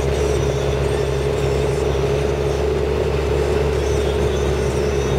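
Deutz-Fahr Agrotron MK 120 tractor's diesel engine running steadily, with a steady whine above the low engine drone.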